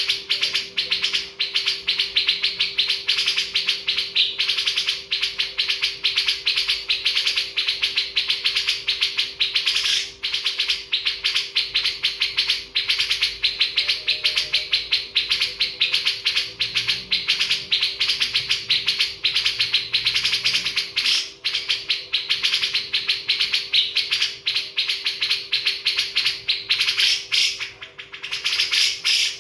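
Many birds chirping rapidly and without pause, over a steady low hum.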